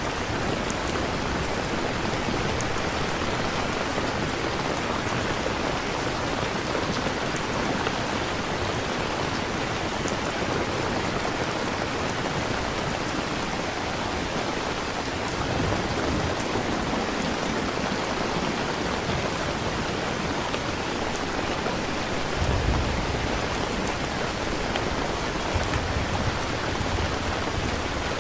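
Steady rain falling, as a background rain-sounds ambience track, with a low rumble near the end.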